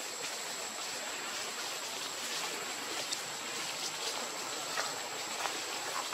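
Steady outdoor background hiss with a thin, constant high-pitched whine over it and a few faint ticks.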